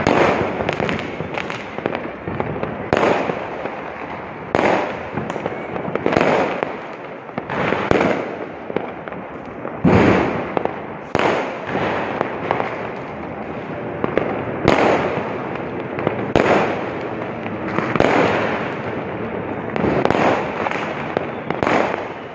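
Fireworks bursting one after another, a loud bang every second or two over continuous crackling.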